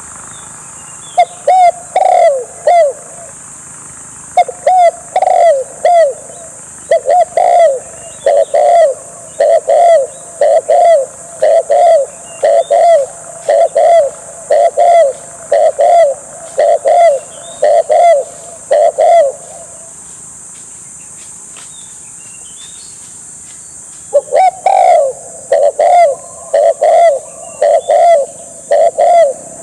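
Spotted dove cooing, played loudly through a Bluetooth speaker as a lure for a bird trap. Short coos in quick pairs repeat about once a second, stop for about four seconds, then start again.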